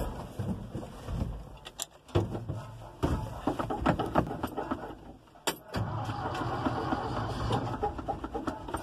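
Cold start of a 1967 Ford's 360 big-block V8: it cranks on the starter, breaking off briefly about two and five and a half seconds in, then catches and runs steadily from about six seconds in.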